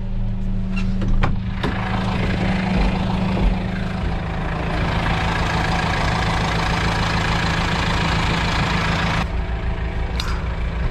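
A diesel tractor engine idling steadily. About a second in there are a few sharp clicks, and from about two seconds in a loud rushing noise runs over the engine and cuts off suddenly near the end.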